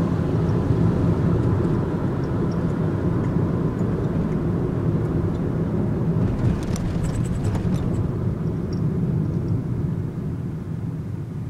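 Nissan NV200 van heard from inside the cabin while driving: a steady engine and road rumble. A brief cluster of light rattling clicks comes a little past halfway, and the rumble drops off near the end.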